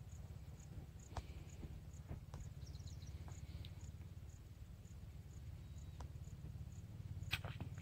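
Quiet outdoor ambience: a steady low rumble under faint, regular high-pitched insect chirps about three a second, with a few sharp clicks, the loudest near the end.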